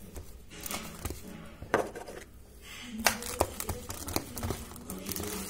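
Wet hands pressing and spreading mashed potato mixture in a metal baking pan: soft squishing and rustling, with a few sharp clicks against the pan.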